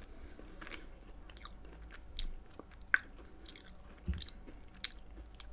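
Chewing a thick, soft chocolate chip cookie, with irregular sharp wet mouth clicks and smacks. The cookie is dense and hard to chew.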